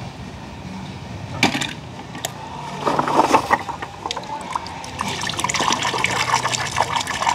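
Water splashing as a hand plunges a small die-cast toy car into shallow muddy water: separate splashes about a second and a half and three seconds in, then steady churning and sloshing from about five seconds on.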